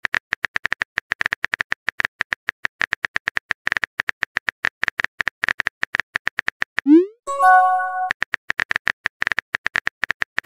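Rapid clicking of a simulated phone-keyboard typing sound effect, about a dozen clicks a second. About two-thirds of the way through, the clicking stops for a quick rising swoop and a short bright chime as a chat message is sent, then the typing clicks start again.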